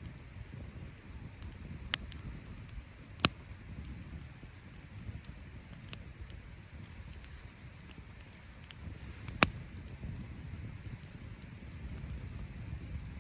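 Wood campfire burning with a low steady rumble, broken by four sharp pops, the loudest about nine seconds in.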